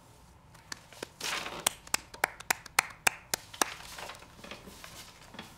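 One person clapping slowly, about ten claps at roughly three a second, then stopping.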